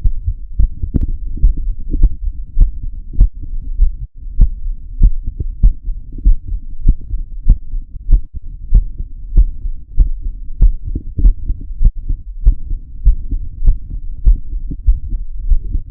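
A woman's heartbeat picked up by a microphone pressed against her chest inside her bra, beating regularly at a little under two beats a second over a low rumble.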